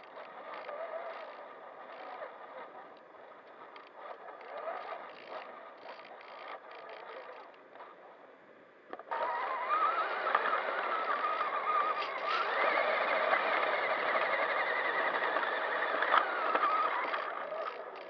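Electric RC truck's motor and geartrain whining, heard from on board the truck. At first it is quieter, with short knocks and rattles. About halfway through the sound jumps suddenly louder as the truck speeds up, the whine climbs higher in pitch, then drops near the end.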